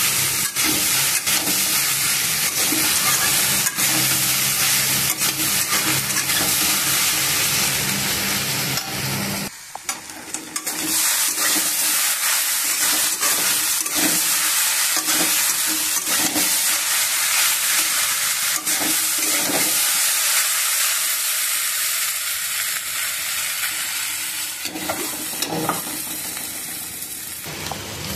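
Okra and potato strips sizzling in hot oil in a kadhai, stirred with a spatula that scrapes and taps against the pan. There is a short break about nine seconds in.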